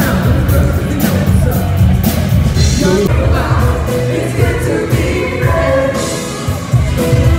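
Loud pop music with a singer over a steady drum beat, playing over a theatre's sound system for a live stage show.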